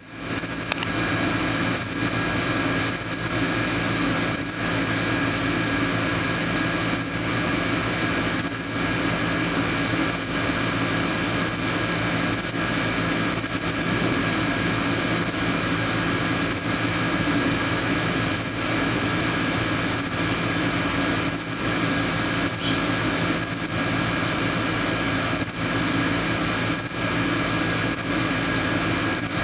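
Short, high chirps repeated every second or two, the begging calls of a fledgling northern cardinal being fed by its mother, over a steady mechanical hum.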